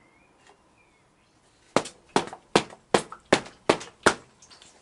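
Seven sharp hand slaps in a row, about two and a half a second, starting a little under two seconds in.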